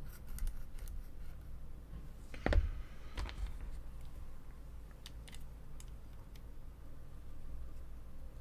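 Small knocks and clicks of a plastic miniature's leg parts being handled and pressed into place on the model. A louder knock comes about two and a half seconds in, another follows shortly after, then a few faint ticks.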